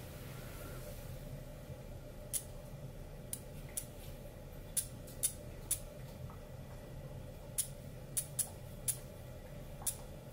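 Spark plug snapping as the Hall-sensor electronic ignition module and coil fire it on the bench: about a dozen sharp ticks at irregular intervals, some in quick pairs, over a steady low hum.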